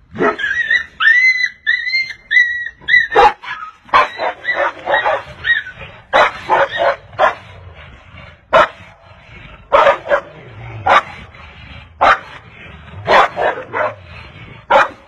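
Dogs yelping and barking. It opens with a quick run of about five high, arching yelps, then breaks into short sharp barks and yelps at irregular intervals, as a pale dog confronts a husky cornered against a door.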